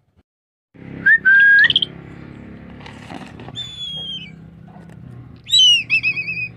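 A pet eagle giving high whistled calls: a short rising note into a held whistle about a second in, a falling slurred whistle around the middle, and a quavering whistle near the end. A faint steady low hum runs underneath.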